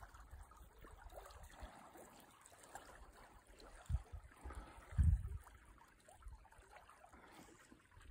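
Small marsh stream flowing and trickling, a faint steady wash of water. Two dull low thumps stand out, about four and five seconds in.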